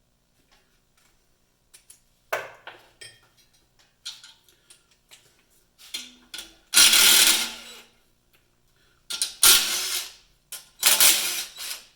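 Small metal clicks and clinks of hand tools and parts being handled. These are followed by three loud rushing bursts of noise about a second long each, with short gaps between them.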